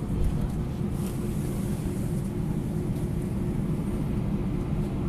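Airbus A320 engines running at low thrust, heard from inside the passenger cabin as the airliner taxis: a steady low hum and rumble with no change in pitch.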